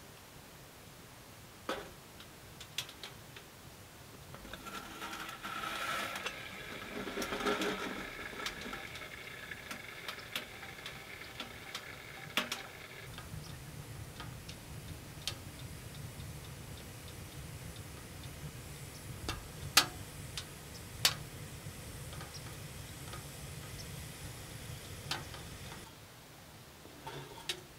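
Wood fire crackling and popping in a small sheet-metal tent stove, with sharp metal clinks as an aluminium moka pot is handled and set on the stovetop. A few seconds in, a run of steady ringing tones lasts for several seconds, and a low hum follows.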